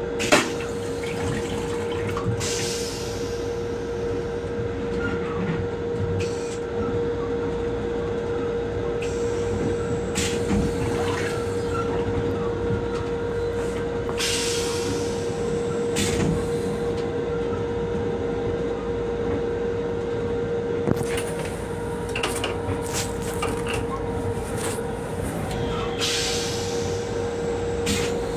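Metro-North M7 electric railcar running, heard from inside its restroom: a steady rumble with a constant hum. There is a sharp knock just after the start and several short bursts of hiss.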